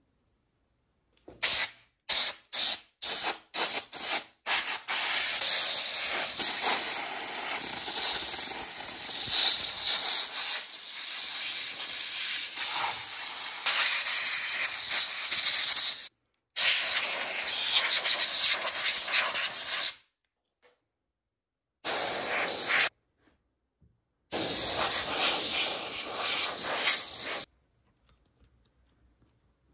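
Compressed-air blow gun blasting dust out of the open mechanism of an Odhner arithmometer. It gives about seven quick puffs, then long steady hissing blasts separated by short pauses.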